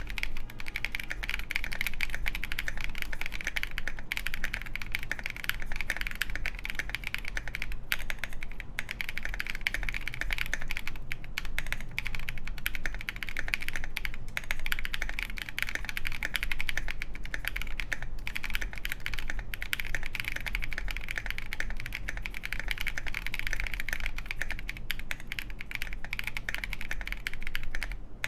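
Continuous typing on a KindleStar Orion 87 mechanical keyboard with lubed Boba U4T tactile switches, a polycarbonate plate and KAT Mizu keycaps: a dense, even stream of keystrokes.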